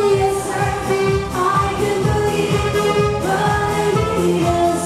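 A woman singing a pop song into a microphone, backed by a band with a steady beat.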